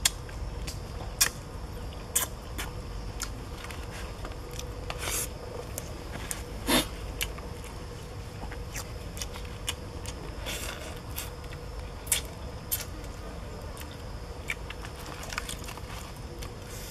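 Scattered small crackles, clicks and scrapes of roasted fish being picked apart by hand over a banana leaf, with a few sharper ticks spread through.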